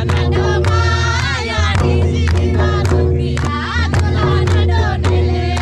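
A group of people singing a Nagpuri folk song together, with sharp rhythmic strokes about twice a second under the singing.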